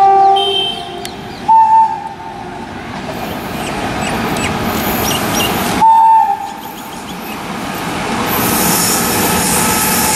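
WAP-5 electric locomotive sounding its two-note horn three times, briefly at the start, about a second and a half in and about six seconds in, as it approaches at speed. The rumble of the train on the rails builds steadily as it passes, with a high-pitched squeal near the end.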